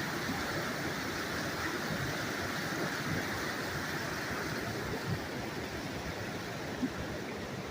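Waterfall rushing in a steady, even roar of falling water, with a couple of faint knocks late on.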